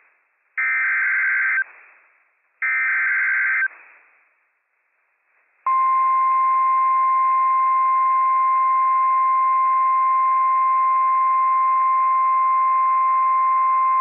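NOAA Weather Radio Emergency Alert System signal. Two one-second warbling bursts of SAME digital header data come about a second apart. After a pause of about two seconds, the steady 1050 Hz weather radio warning alarm tone starts and holds, the signal that a warning message follows.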